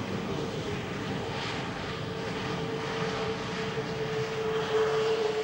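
Airbus A318-121's Pratt & Whitney PW6000 turbofans during the landing rollout: a steady jet rush with a steady whine, growing louder near the end.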